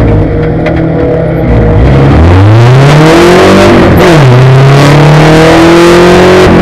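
A Spec Racer Ford's four-cylinder engine heard from the cockpit under racing load. The revs sit low for the first couple of seconds, then climb steadily under full throttle. A quick upshift about four seconds in drops the pitch, the revs climb again, and another shift comes right at the end.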